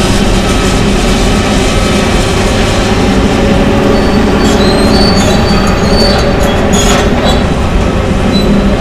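Hydraulic demolition excavators, one a John Deere, running steadily under load while tearing into a steel-framed building, with high metallic squeals starting about halfway through and a few brief crunches near the end.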